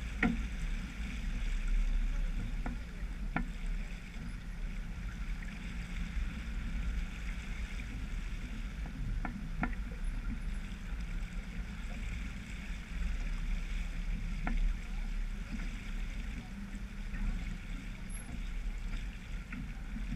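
Water rushing along the hull of a sailboat moving under sail, over a steady low rumble, with a few faint clicks scattered through it.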